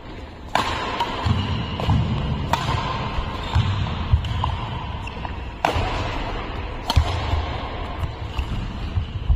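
A badminton rally: sharp smacks of rackets striking the shuttlecock, four of them at uneven intervals, over background music with a steady beat.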